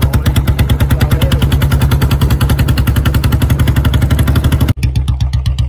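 Royal Enfield Bullet 350's single-cylinder engine thumping steadily through its aftermarket silencer while being ridden, about a dozen even beats a second. The sound breaks off for an instant near the end and picks up again.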